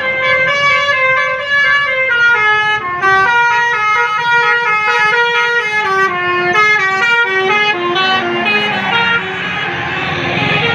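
Bus basuri horn playing a melody: a quick run of short held notes stepping down and back up in pitch.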